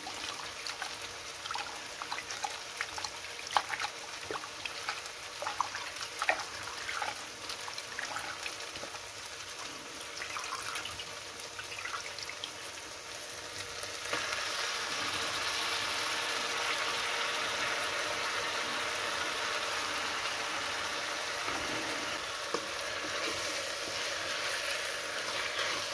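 Gongura leaves swished by hand in a steel bowl of water, with light splashes and clicks over a faint sizzle from the pan. About halfway through, a louder steady sizzle sets in suddenly as the wet leaves cook in the hot oil and masala and are stirred with a metal spoon.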